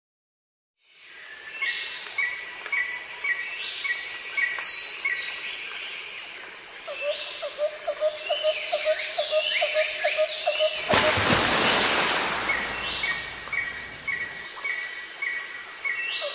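Songbirds calling in the open: repeated quick chirps and high whistles that sweep downward, with a run of quick lower notes in the middle. About eleven seconds in, a broad rushing noise swells for around two seconds.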